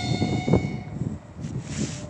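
Horn of a 3ES5K 'Ermak' electric locomotive sounding one steady note as a greeting, cutting off about a second in. Wind buffets the microphone throughout.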